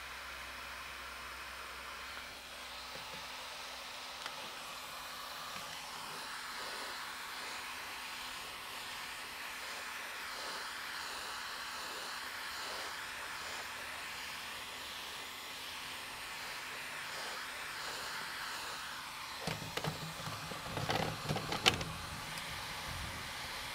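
Nitro RC buggy engine whining as the car runs laps at a distance, its pitch wavering up and down with the throttle. About twenty seconds in, a short cluster of louder knocks and rumble.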